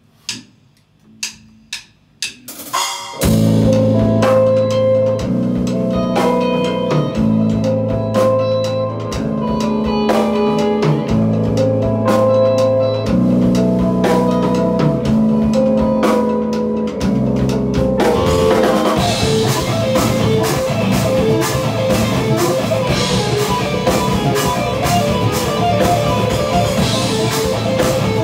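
Full rock band rehearsing live: drum kit, bass guitar and distorted electric guitars, including headless Strandberg guitars. A few sharp clicks are heard alone before the whole band comes in together about three seconds in, playing long low chords that change about once a second. Around eighteen seconds in the drums get busier, with dense cymbal hits under the guitars.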